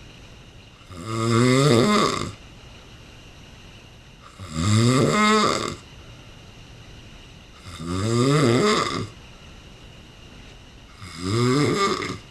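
A man snoring loudly in his sleep: four long snores about three seconds apart, each one a pitched snore that rises in pitch, with quiet breathing gaps between.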